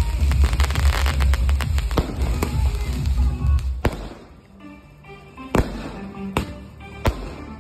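Aerial fireworks bursting: a dense crackle of rapid bangs over a low rumble for about four seconds, then a few single sharp bangs a second or so apart. Music plays underneath.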